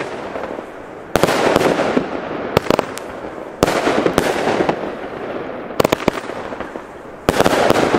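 Aldi Big Boombastic 25 mm fan-shaped firework battery firing: sharp bangs of shells launching and bursting, a second or two apart, each trailing off over about a second.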